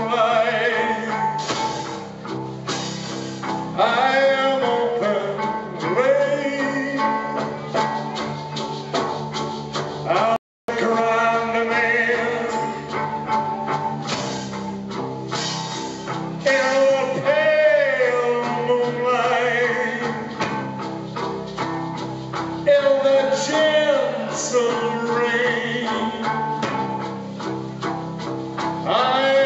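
Rock band playing live: a man singing over electric guitar and drums, the guitar and bass holding a steady low riff. The sound drops out for a split second about ten seconds in.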